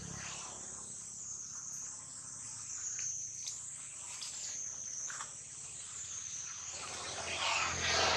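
High-pitched insect chorus: a steady shrill drone that swells and fades every second or so. A few faint short sounds come through in the middle, and a louder rush of noise near the end.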